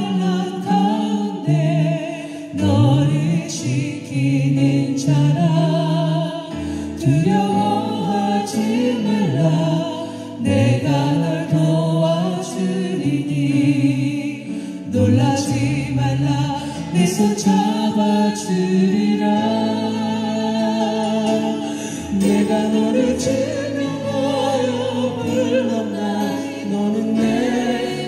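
A small vocal group, two women and a man, singing a worship song in harmony into microphones over a sustained instrumental accompaniment.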